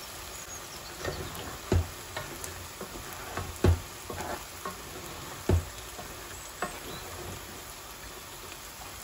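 Meat and freshly added eddoes being stirred with a wooden spoon in a granite-coated pot over a steady frying sizzle. The spoon knocks against the pot three times, near two, four and five and a half seconds in, with the middle knock the loudest, and there are lighter scrapes in between.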